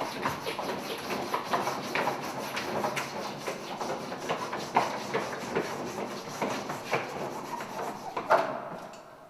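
White chalk scraping and knocking on a blackboard in fast, vigorous looping strokes, a dense run of scratches with sharper hits among them, which fades out near the end.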